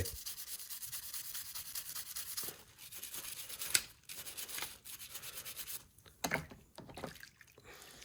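Plastic model kit parts being rubbed and scrubbed by hand, a fast rhythmic scratching, with a sharp click a little under four seconds in.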